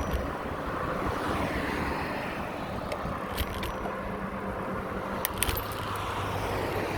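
Wind rushing over the microphone and the hum of tyres on the path from a bicycle being ridden, with a few short sharp clicks a few seconds in.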